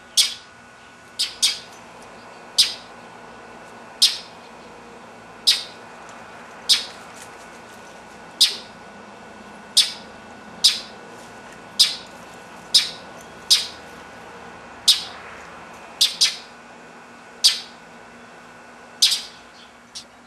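Northern mockingbird giving short, harsh alarm calls about once a second at an uneven pace, scolding a stalking cat.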